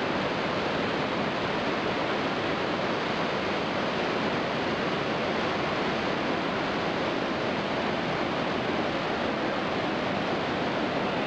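Steady, unbroken rush of water from Iguazu Falls, a huge waterfall.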